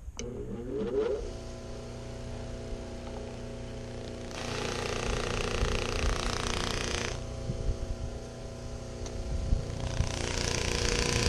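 Dual-speed bench buffer motor running steadily with a wire wheel brush spinning on its shaft. A steel knife blade is pressed against the wire wheel twice, each time for about three seconds, giving a harsh scraping hiss as the bristles scrub grime off the steel.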